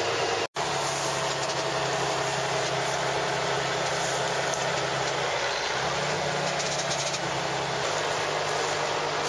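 Tractor engine running steadily under a broad hiss. The sound drops out for an instant about half a second in, and the engine's hum steps up slightly in pitch past the middle, then settles back near the end.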